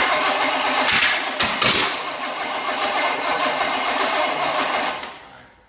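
Chevy 305 small-block V8 on an engine stand cranking over on its starter, primed with a little gas poured into the intake, without catching and running; a few louder bursts come between one and two seconds in. The cranking stops about five seconds in.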